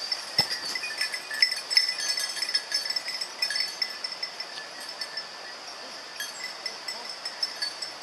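A hunting dog's bell jingling irregularly as the dog moves, busiest in the first few seconds and thinning out after about six seconds, over a steady high-pitched drone.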